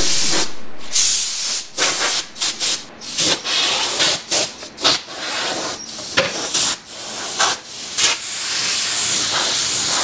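Compressed-air blow gun on an air hose hissing as it blows dust off a sanded wooden panel, in a quick series of short blasts, then one longer steady blast near the end.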